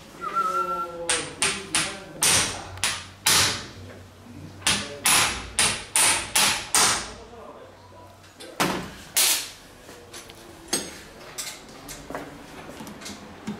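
Hammer blows on metal, each ringing briefly: a quick run of about a dozen strikes, then two heavier blows, then a few lighter taps near the end.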